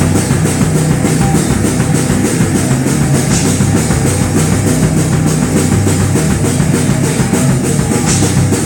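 A rock band playing live, with electric guitar, bass guitar and a drum kit at full volume.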